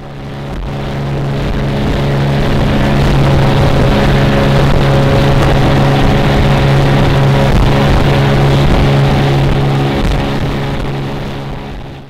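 Motorboat engine running steadily under way, with a rush of water and wind, heard from inside the boat's cabin. It fades in over the first couple of seconds and fades out near the end.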